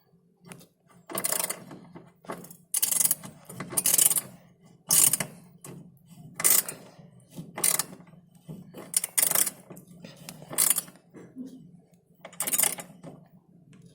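Ratchet wrench worked in short strokes, about ten of them roughly a second apart, tightening the bolts that hold a top-load washing machine's motor down so that its loose drive belt is tensioned.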